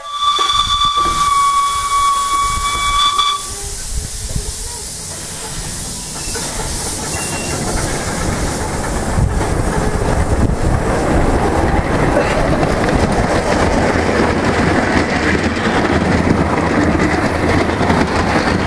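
Miniature steam locomotive whistle blowing one steady note for about three seconds. The double-headed miniature steam train then pulls away with hissing steam and the clatter of wheels on the rails, getting louder as it gathers speed.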